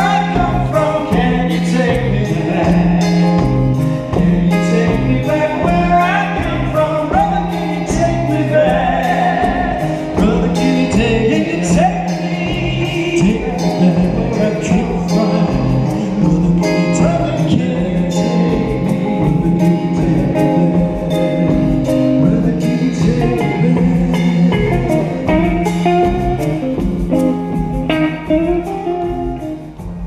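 Live rock band playing with singing: lead vocal over electric guitar, keyboards and drums keeping a steady beat.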